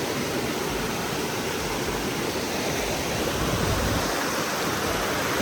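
Steady rushing of a mountain creek running over rocks.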